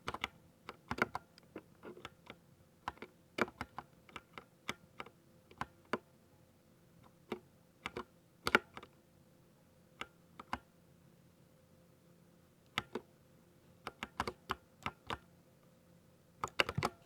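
Mechanical keyboard being typed on with a thocky keystroke sound: single key presses and quick clusters at an uneven pace, with a pause of about two seconds past the middle.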